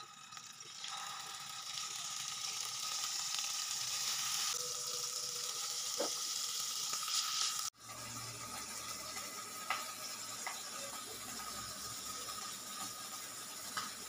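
Fish steaks sizzling as they fry in hot oil in a wok, a steady hiss. It cuts off abruptly about eight seconds in, giving way to a quieter steady hiss with a few light clicks.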